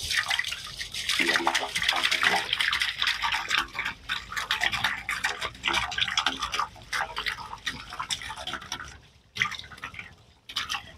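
Bleach pouring from a tipped plastic jug into an open well casing, splashing and gurgling. It runs steadily for about nine seconds, then comes in two short spurts near the end.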